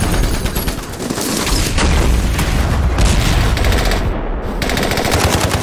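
Battle sound effects: rapid machine-gun and rifle fire rattling over heavy booms of explosions. About four seconds in the gunfire cuts out briefly, leaving only a low rumble, then resumes.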